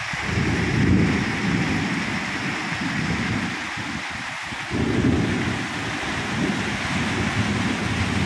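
Rain falling steadily during a Kalbaishakhi (nor'wester) thunderstorm, with low rolling thunder. The thunder swells about a second in and again around five seconds in.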